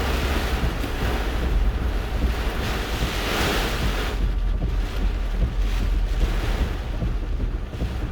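Hurricane eyewall wind, sustained 50–70 mph with gusts past 90 mph, rushing continuously with a heavy low rumble of wind buffeting the microphone. A gust swells to a louder hiss about three to four seconds in, then eases.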